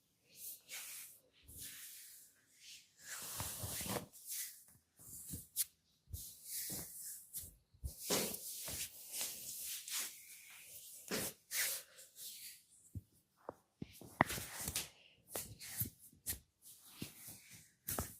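Hands rubbing and kneading oiled skin and hair in a massage: irregular soft swishing strokes with short pauses, and a couple of sharp clicks.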